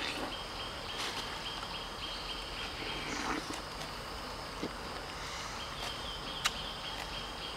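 Insects trilling in the surrounding woods: a high, even buzz that breaks off for a couple of seconds midway and then resumes. A few light clicks stand out over it, about a second in and again near six and a half seconds.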